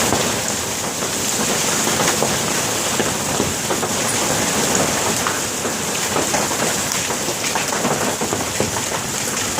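Hailstorm: hailstones and rain pelting down in a steady, dense clatter of many separate impacts.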